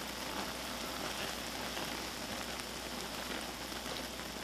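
Pot of instant ramyun noodles boiling, a steady bubbling hiss, as a wooden spoon stirs the noodles.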